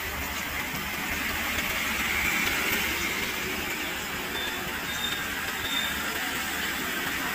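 Food deep-frying in a pot of hot oil, a steady sizzle and hiss.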